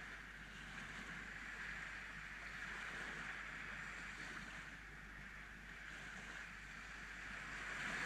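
Small sea waves breaking and washing up a sandy shore: a steady wash that swells and eases, rising near the end as a wave breaks.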